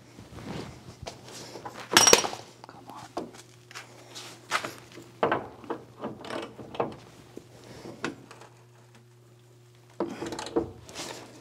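Irregular metal clanks and knocks from a long bar being worked in the rusted cab mount of a 1985 Chevy K10's frame, the loudest about two seconds in and a quick run of knocks near the end, over a steady low hum.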